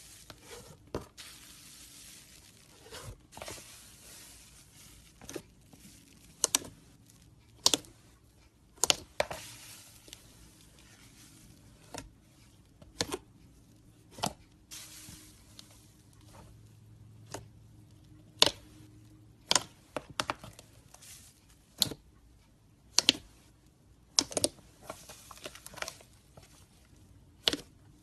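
Slime being squeezed and stretched by hand, giving irregular sharp pops and clicks with soft squishing and tearing between them.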